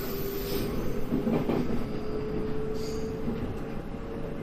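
JR Central 313 series electric train running, heard from inside the front cab: a steady rumble with a tone whose pitch rises slightly, and the wheels knocking over rail joints and points a few times.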